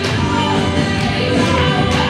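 Loud recorded pop-rock song with a singer.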